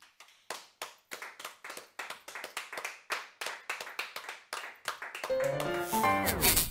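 A small audience applauding, with separate handclaps several times a second rather than a dense roar. About five seconds in, music fades in and grows louder over the clapping.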